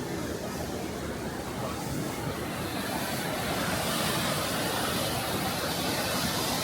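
Steady rushing of the Düden waterfall's falling water, swelling slightly about three seconds in.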